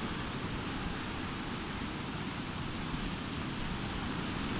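Steady rushing background noise of an open beach, with no distinct events.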